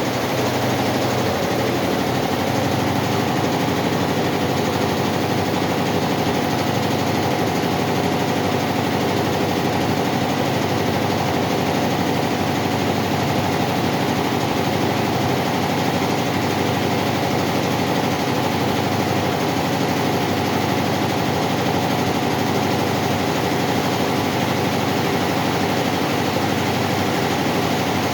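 Four-head computerized embroidery machine running steadily, its needles stitching in a fast, even mechanical rhythm.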